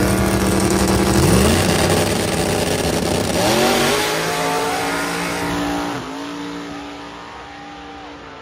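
Small-tire no-prep drag cars, a Fox-body Mustang among them, launching hard off the line. The engine note climbs, drops at each gear change and climbs again three times, fading as the cars pull away down the track.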